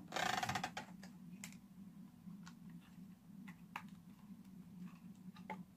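Plastic toy-brick locomotive parts being handled and fitted together: a brief rattle at the start, then scattered light plastic clicks.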